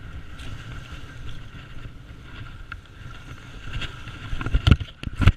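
Wind rumbling on the microphone of a hand-held phone camera being carried over rocky ground, with handling noise and two loud knocks near the end.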